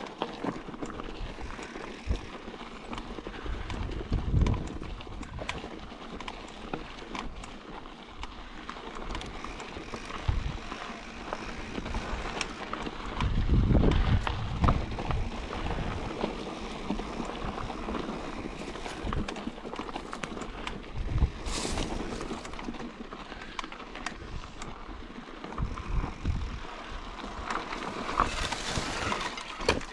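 Mountain bike descending a dirt trail: tyres rolling over the ground while the bike rattles with frequent small knocks, and wind buffets the microphone in gusts, strongest about halfway through.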